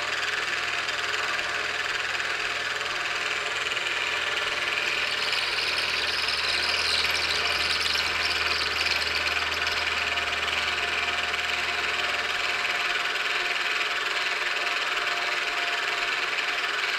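Milling machine running a 3/16 end mill at about 1120 RPM, cutting a radius while a stepper motor slowly turns the rotary table under it: a steady machining whir and hiss. A low hum drops out about three-quarters of the way through.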